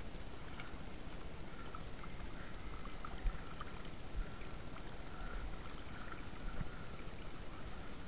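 Water sloshing and splashing around a fishing net being handled by hand at the surface, with a few small knocks, the sharpest about three seconds in.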